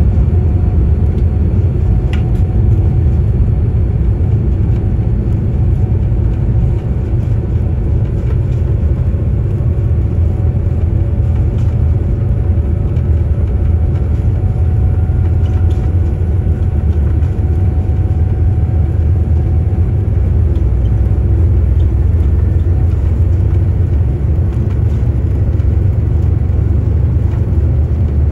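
Cabin noise inside a Boeing 787-9 airliner rolling on the ground: a steady, heavy low rumble from the jet engines and landing gear, with a faint engine whine above it that rises slowly partway through.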